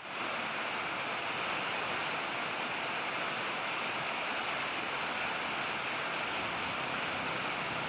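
Steady rain falling: an even hiss that fades in at the very start, then holds level.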